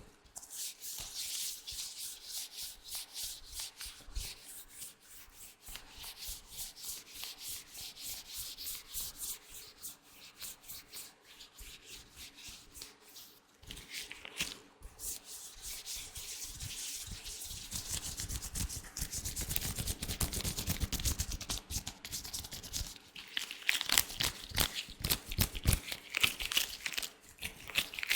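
Latex-gloved hands rubbing together in quick, rhythmic strokes, a dry high-pitched swishing. It grows louder in the second half.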